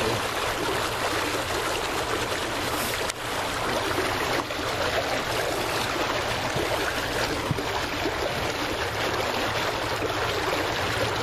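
Steady rush of moving water, trickling and lapping close by.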